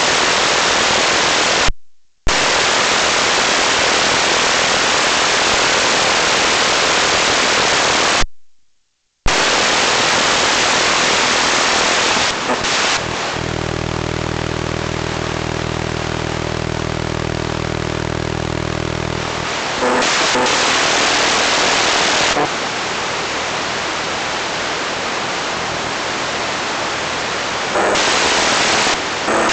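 Loud hiss of static from an analog FPV video receiver that has lost the drone's signal. It cuts out completely twice, briefly. About a third of the way in a low buzz sits under the hiss for about six seconds before plain hiss returns.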